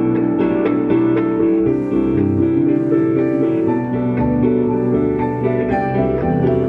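Live band music with guitar and keyboard playing steady sustained chords.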